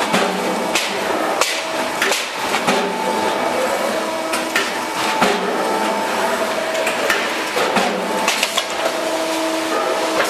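Sandpaper die cutting press working: a steady machine hum with irregular sharp clicks and knocks over it.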